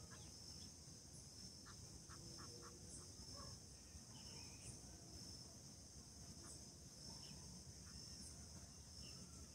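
Faint, steady, high-pitched chorus of insects in near silence, with a few soft short sounds about two seconds in.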